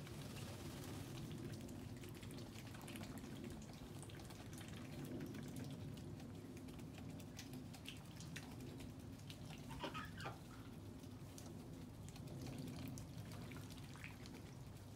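Faint dripping and light rain patter on wet ground, with scattered small ticks over a steady low background rumble. A brief pitched call sounds once, about two-thirds of the way through.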